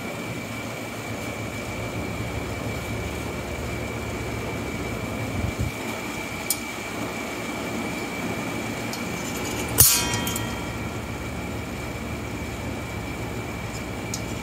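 Steady mechanical running hum with a constant faint high whine, and one sharp metallic clank that rings briefly about ten seconds in.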